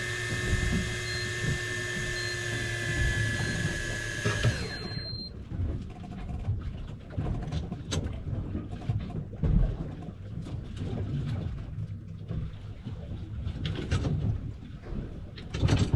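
Electric fishing reel's motor whining steadily as it winds in line, cutting off suddenly about five seconds in. After that there is a low rumble with scattered knocks, louder near the end.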